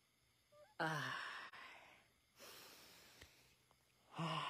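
A person sighing close to the microphone: a voiced sigh about a second in, a long breathy exhale in the middle, and another voiced sigh beginning near the end.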